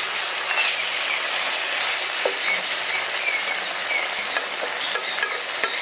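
Thick fish rezala gravy simmering and sizzling in a black iron kadai, a steady hiss with small pops, while a wooden spatula stirs and scrapes through it; the gravy has cooked down thick.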